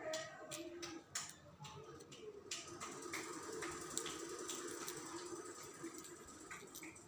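Scattered small clicks and taps of an F connector being twisted and fitted by hand onto the end of a coaxial cable, over a faint steady hum.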